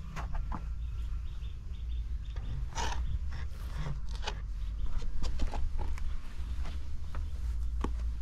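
Outdoor ambience while walking: footsteps, a steady low rumble, and a bird chirping, with a quick run of short high chirps about a second in.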